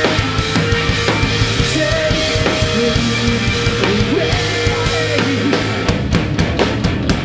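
Live heavy rock band playing loud, with distorted guitars over a drum kit, then a run of sharp hits played together near the end as the song closes.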